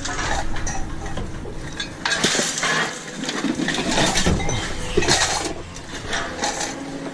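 Pieces of scrap metal clinking and knocking together as they are handled, in a series of separate sharp hits.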